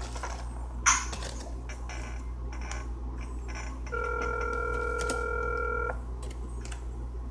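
Telephone ringback tone of an outgoing call, heard through a phone's speaker. There is one steady two-second ring a little before the middle, following the two-seconds-on, four-seconds-off cadence of a North American ringback. A sharp click comes about a second in.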